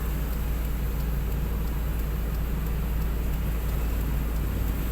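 Hummer H2's V8 engine idling steadily, just after new ignition coils, spark plugs and injectors were fitted to cure a random misfire.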